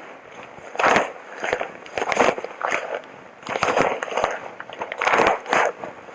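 Hazmat suit material rustling and crinkling in short, irregular crackly bursts.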